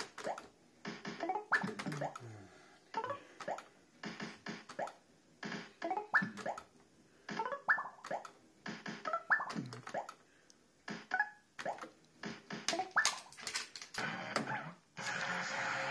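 Barcrest MPU5 fruit machine playing game after game, about one every couple of seconds: each spin brings sharp clicks as the reels stop and short rising electronic beeps. Near the end a continuous electronic tune starts up.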